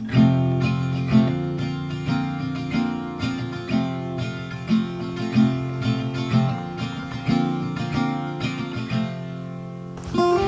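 Background music: acoustic guitar strummed and picked in a steady rhythm, easing off briefly near the end.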